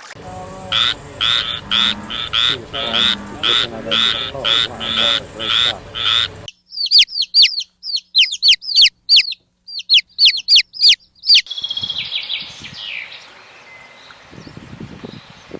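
Animal calls: a run of about a dozen evenly spaced croaking calls, about two a second, then high, quickly falling bird chirps in rapid bursts, fading to a faint stretch near the end.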